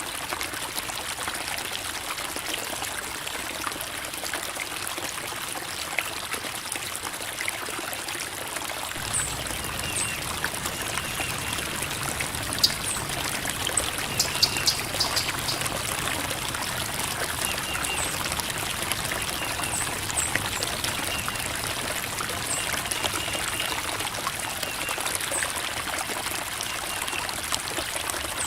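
Creek water trickling and babbling over rocks in a steady flow, sounding fuller from about nine seconds in. A few faint, short high chirps sit above it.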